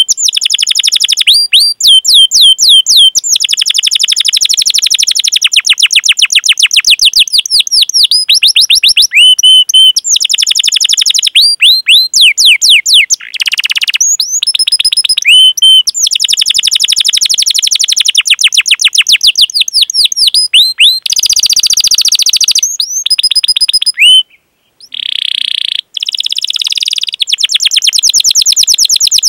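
Domestic canary singing a long, fast song: rapid runs of repeated sweeping chirps ('cuit cuit') and rolling trills, phrase after phrase, with a short break about two thirds of the way through.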